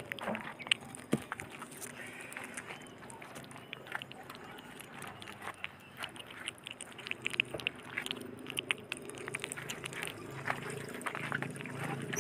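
Baby otter chewing and smacking on pieces of raw fish: a run of short, wet clicks and smacks.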